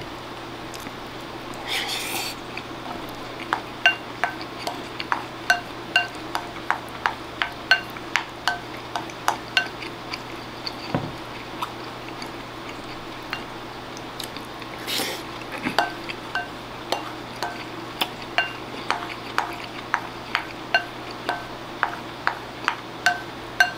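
Wooden spoon knocking and scraping against a ceramic bowl while scooping up the last of the food: a long run of light clinks, about one or two a second, each with a short ring from the bowl.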